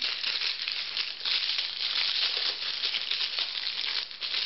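Thin clear plastic packaging bag crinkling and rustling continuously as hands work a silicone pot holder out of it.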